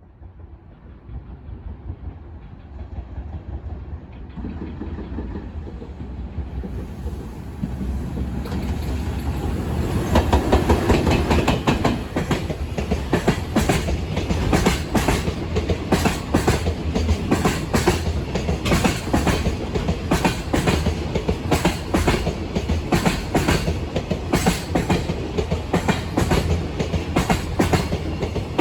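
JR Freight container train, EF210-300 series electric locomotive EF210-304 leading, approaching and passing. The rumble builds steadily and is loudest about ten seconds in as the locomotive goes by. After that the container wagons' wheels clack over the rail joints in a steady, rhythmic clickety-clack.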